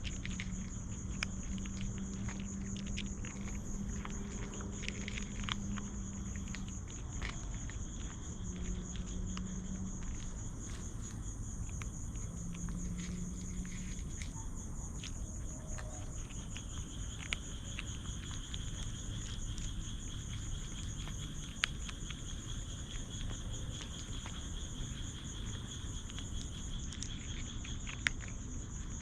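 Night insects calling in a steady, high, fast-pulsing trill, joined about halfway by a second, lower trill. Scattered small clicks and rustles sound over it, and a low hum comes and goes in the first half.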